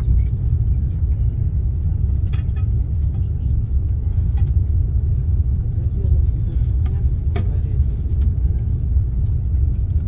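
Sapsan (Siemens Velaro RUS) high-speed electric train running at speed, heard inside the passenger cabin: a steady low rumble with a few faint clicks.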